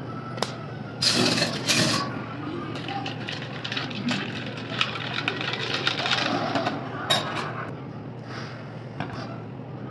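A metal spoon stirring iced coffee in a glass, clinking again and again against the glass and ice, over a steady low hum. A louder burst of noise comes about a second in.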